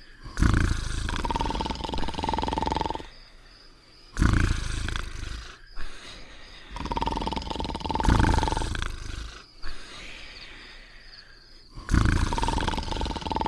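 Cartoon dog snoring: loud rasping snores, each cycle carrying a steady high whistling note, repeating about every four seconds.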